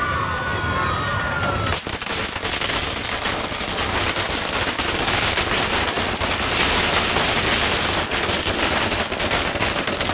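A long string of firecrackers going off, a rapid, unbroken crackle of bangs that begins about two seconds in and keeps on.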